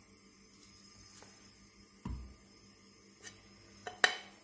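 Minced meat being scraped off a plate with a plastic spatula into a multicooker's inner pot: a soft low thud about halfway through as meat drops into the pot, then a sharp clack of the spatula against the plate near the end.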